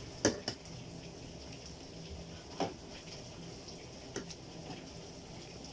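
Four scattered sharp clicks and knocks over a faint, steady background hum; the first two come close together about a quarter of a second in.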